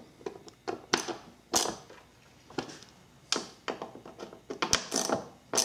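Hand ratchet with an 8 mm socket clicking in short irregular bursts as it snugs bolts into a plastic air cleaner box cover.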